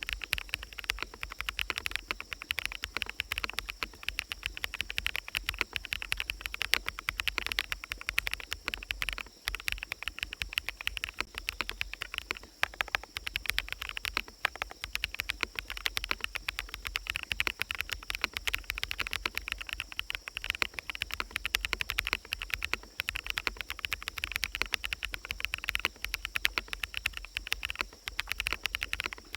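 Continuous typing on a fully lubed bsun Sunset Yellow mechanical keyboard: a steady, unbroken stream of many keystroke clacks a second, with forest ambience behind.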